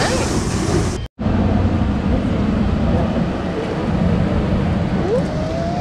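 Wind rumbling on the camera microphone, a steady low buffeting noise, with a brief complete dropout about a second in.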